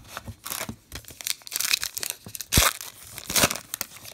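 Foil trading-card pack wrapper crinkling and being torn open, in a run of uneven rustles. A sharp knock a little past halfway is the loudest sound.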